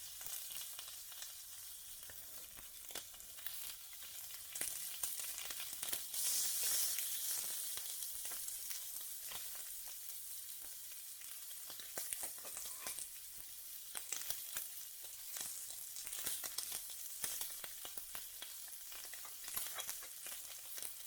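Kobe beef steak sizzling in a frying pan: a steady hiss with many scattered crackles, swelling louder about six seconds in.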